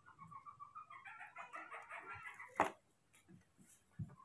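A rapid run of short, pitched animal calls, about ten a second, rising in pitch and getting louder, cut off by a sharp click; a dull thump follows near the end.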